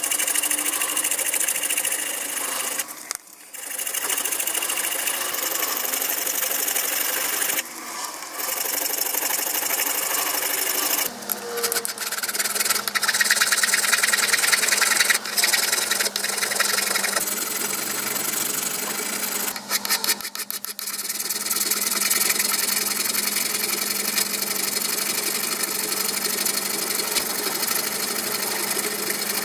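Hand file rasping across a metal hammer head clamped in a vise, in quick continuous strokes that stop briefly a few times.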